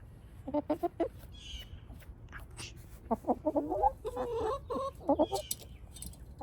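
Wyandotte hens clucking in short soft calls: a few around the first second, then a busier run of clucks from about three seconds in to past five, with a few light sharp clicks among them.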